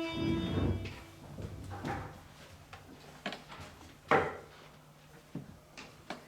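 A few scattered knocks and clicks, the loudest a sharp knock about four seconds in, after a held music chord dies away at the start.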